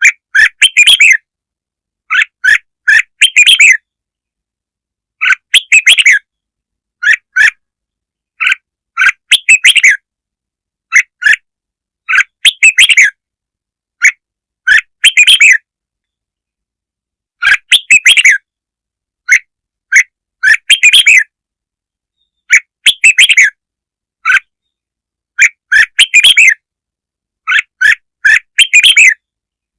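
Red-whiskered bulbul song: short phrases of quick, chirpy warbled notes, repeated every second or two with dead silence between them. It is a recording of the song made for luring and stimulating bulbuls.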